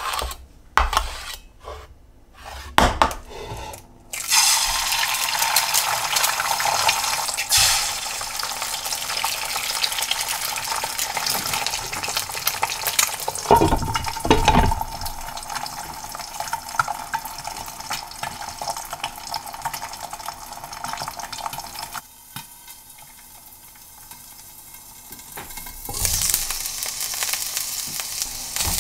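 A kitchen knife scrapes and taps on a wooden cutting board for a few seconds. Then two eggs fry in a frying pan with a steady sizzle. There are a few clatters about halfway through, as the pan's glass lid is handled, and the sizzle turns quieter for a few seconds near the end before it comes back.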